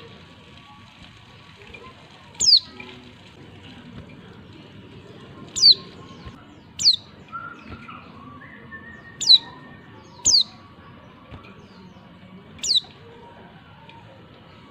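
White-eye (pleci) calling in a cage: six short, sharp notes, each falling steeply in pitch, spaced one to three seconds apart. It is a female's call, the kind used as a lure to set male pleci singing.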